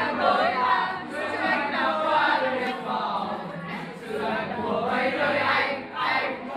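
A group of students singing a song together in chorus.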